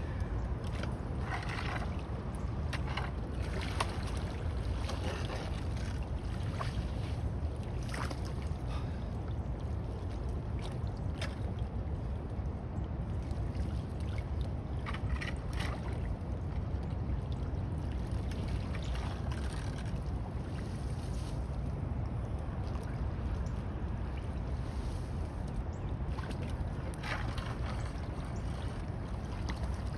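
Floodwater swirling down a storm drain with a steady low rush, while a metal rake splashes and scrapes at the drain grate several times.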